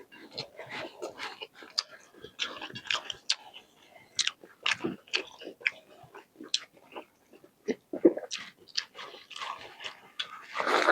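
Close-miked eating: biting and chewing with wet mouth clicks and occasional crunches, in an irregular run.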